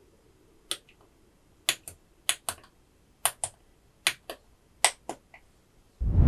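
Slow, separate key presses on a modded FancyAlice66 mechanical keyboard with lubed Kailh Clione Limacina tactile switches: about five strokes, each a sharp click going down and a second, softer one on release. A loud low thud comes in at the very end.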